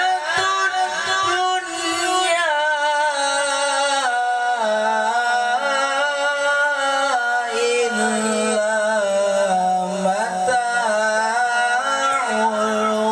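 A young qori's voice in Quran recitation (tilawah), drawing out a long, ornamented melismatic phrase in the maqam style, the pitch bending and wavering and settling lower about four and a half seconds in.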